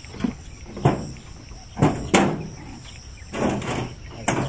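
Insects chirring steadily in the background, broken by a handful of short rustles and knocks.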